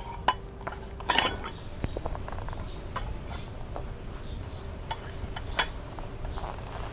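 Iron poles of a Naturehike NH20PJ208 folding fire rack clinking against each other as they are handled and packed into their fabric carry bag: a handful of separate sharp metallic clinks, the loudest cluster about a second in with a brief ring.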